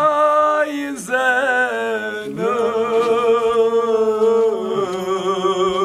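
Men chanting a Kashmiri noha, a Shia mourning lament, unaccompanied. The phrases are long and drawn out on held notes, with a new phrase starting about a second in and again a little past two seconds, and a wavering pitch in the later phrase.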